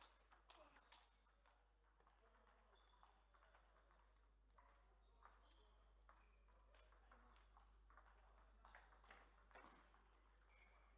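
Faint, irregular clicks of a table tennis ball striking the bats and table, over a steady low mains hum, with a few brief high squeaks.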